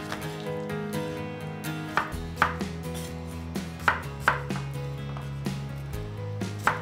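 Kitchen knife cutting apples into chunks on a wooden cutting board. The blade gives sharp knocks on the board, in pairs about half a second apart, three times. Background music plays underneath.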